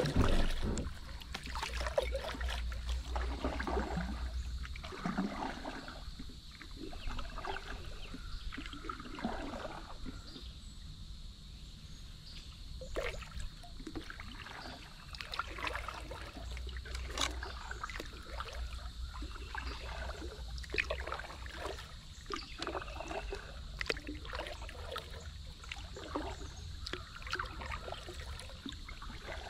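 Kayak paddle strokes: irregular splashes and water trickling off the paddle blades as the kayak moves along a slow river.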